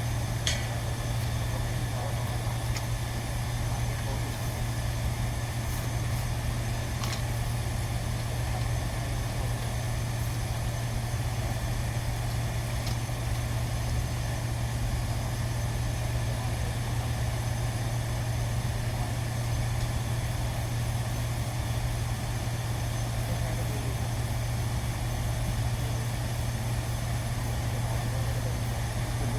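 Steady low machine hum without change, with a few faint clicks about half a second, seven seconds and thirteen seconds in.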